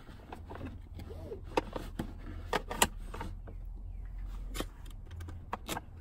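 Vehicle seat belt being threaded by hand through the rear-facing belt path of a Graco Extend2Fit car seat: scattered clicks and knocks of the metal latch plate and plastic shell, over a steady low hum.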